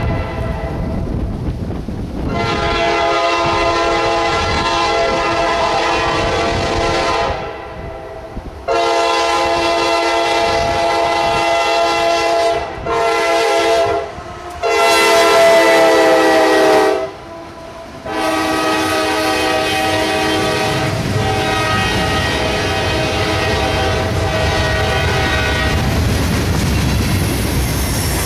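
A CSX diesel locomotive's air horn sounds a chord in long, long, short, long blasts, then one more long, fainter blast: the warning pattern for a grade crossing. The pitch drops as the locomotive passes. Under it, the locomotive's engine and the wheels of the loaded freight cars rumble, the rumble growing as the cars roll past.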